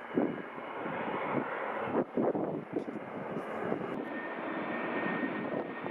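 Jet airliner engine noise, a steady rushing sound, with a faint steady whine joining about two-thirds of the way through.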